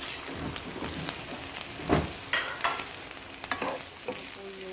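Garlic and onion sautéing in hot oil in a pan, sizzling steadily while a spatula stirs them, with scattered scrapes and knocks against the pan, the loudest knock about two seconds in.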